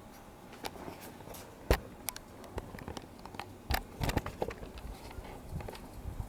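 Irregular clicks and knocks of hard objects being handled, with one sharp knock a little under two seconds in and a cluster of knocks past the middle.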